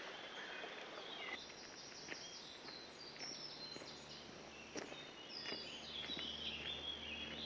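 Faint songbird chirps and trills in woodland, several birds calling on top of each other, with a few light clicks. A faint low steady hum sets in about a second and a half in.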